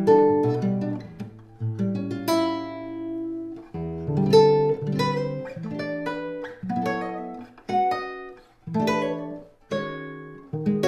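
Ramirez 2CWE nylon-string cutaway guitar being played: strummed chords and picked notes in quick succession, with one chord about two seconds in left to ring.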